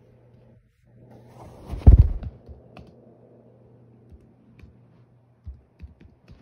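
A loud, muffled thump with rustling about two seconds in, then a few scattered light clicks of laptop keyboard keys being pressed.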